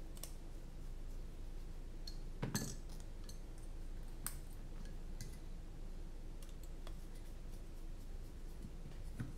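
Scattered small clicks and clinks of a hex screwdriver, aluminium standoffs and carbon-fibre frame plates being handled while screws are driven in, the loudest cluster about two and a half seconds in. A low steady hum runs underneath.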